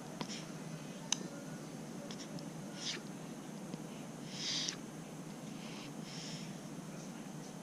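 A baby's short, breathy nasal breaths, five or so spaced a second or two apart, the loudest about halfway through, over a steady low hum.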